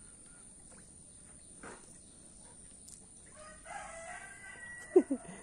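A rooster crowing once, a call of about a second and a half that starts past the middle, followed by a short sharp sound just before the end.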